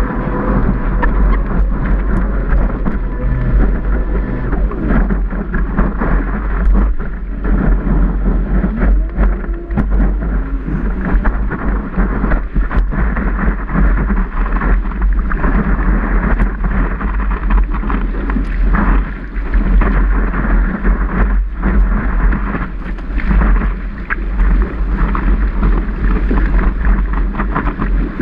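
Water rushing and spraying past a surfboard-mounted camera as the board rides a breaking wave, with wind buffeting the microphone in a steady, heavy rumble.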